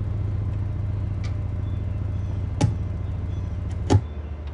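DC Audio Level 3 10-inch subwoofer in free air playing a steady low bass test tone, with two sharp clicks about two and a half and four seconds in. The tone changes after the second click.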